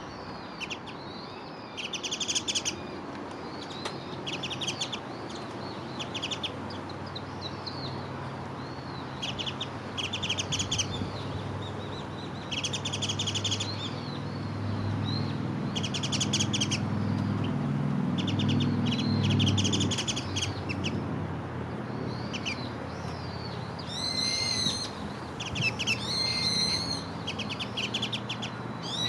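Wild garden birds calling: short, rapid chattering calls repeated every second or two, and near the end a few louder, shrill, arching calls. A low hum rises and fades in the middle.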